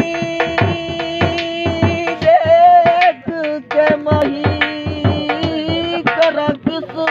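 Instrumental music ahead of a Saraiki song: a steady held drone under a quick, even drum beat, about three strokes a second, with a short melody line bending over it twice.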